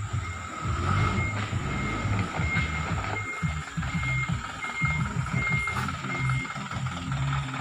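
Dump truck reversing, its reverse alarm giving short high beeps about three every two seconds over the steady sound of its engine. The beeps stop near the end.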